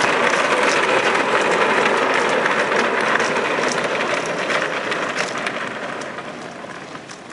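Steady rushing, crackling scrape of a boat hull being towed over the ground behind a truck, fading away over the last couple of seconds.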